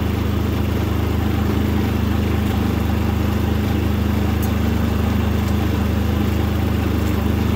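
Predator 3500 inverter generator's 212cc air-cooled four-stroke OHV engine running steadily on its first run, a quiet, even hum.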